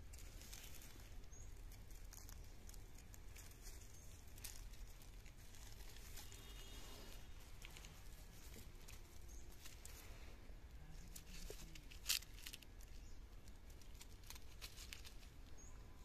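Faint rustling and scattered light ticks from dry leaf litter and dirt being stirred, with one sharper click about twelve seconds in.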